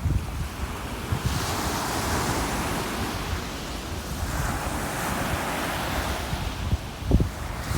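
Ocean surf washing in a steady hiss that swells about a second in, with wind buffeting the microphone in low gusts.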